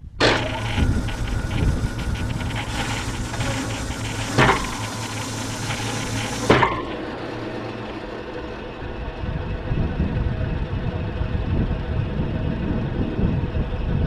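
Band sawmill's engine starting suddenly and running loudly with a high hissing whir, with two sharp knocks. After several seconds the hiss cuts off abruptly and the engine carries on running more quietly and steadily.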